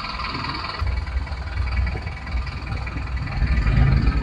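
Low, uneven rumble of a Chevrolet Blazer's engine and exhaust while it is driven, heard from inside the vehicle.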